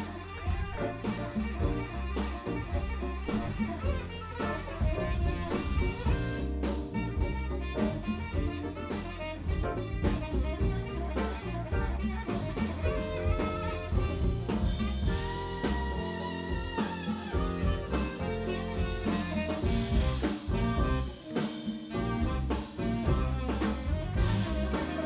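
Live band playing an instrumental passage: drum kit, electric bass and keyboards, with a saxophone playing long held notes over them in the second half.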